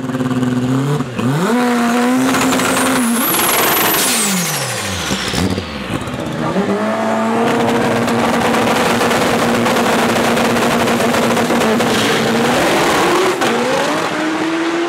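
Turbocharged front-wheel-drive drag racing car engine at high revs. The revs climb with a high whine, fall away about four seconds in, then hold steady for several seconds before rising again near the end.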